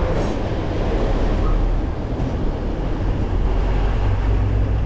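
Steady wind rumble on a GoPro Hero 10's microphone from riding a bicycle, mixed with road noise.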